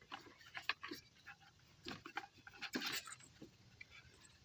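Rubber serpentine belt being worked off the pulleys by hand: short, irregular scrapes and rubbing sounds, with the engine off.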